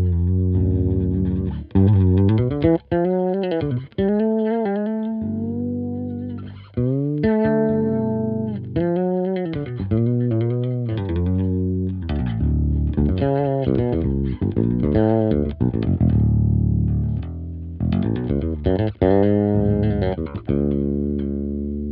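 Bass Collection Jive Bass fretless electric bass played solo in a loose, noodling line, with plucked notes and many sliding glides in pitch between them.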